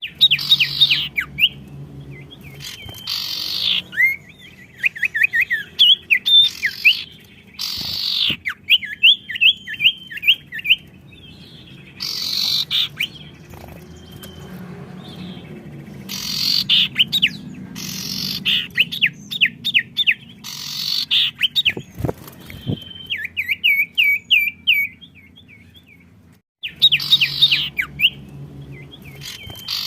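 Songbirds singing vigorously and answering one another, in quick runs of short high chirps broken by loud sharp calls.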